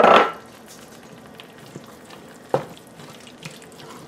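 Sliced carrots and green pepper sliding from a bowl into a stainless steel pot of tomato stew, the rattle ending about half a second in. One sharp knock follows about two and a half seconds in, and a wooden spoon starts stirring the thick stew near the end.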